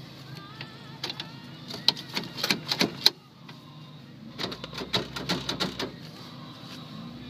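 Off-road vehicle running slowly under a low engine hum, with two bursts of rapid clicks and knocks.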